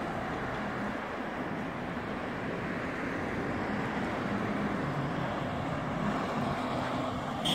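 Steady road traffic noise from cars driving along a city street. A short high-pitched sound comes right at the end.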